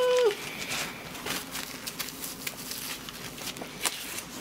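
A short closed-mouth 'mm' hum, rising then falling in pitch, as a mouthful of toast sandwich is chewed, then wet chewing and small mouth clicks, with one sharper click near the end.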